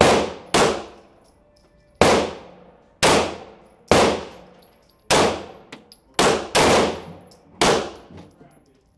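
Nine 9mm pistol shots fired at an uneven pace, two of them close together at the start and two more a little past the middle, each followed by a decaying echo off the indoor range's block walls.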